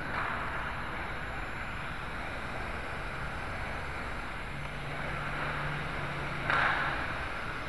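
Motors and propellers of a small toy RC quadcopter, heard through its own onboard camera microphone as a steady buzzing rush with wind noise. A brief louder surge comes about six and a half seconds in.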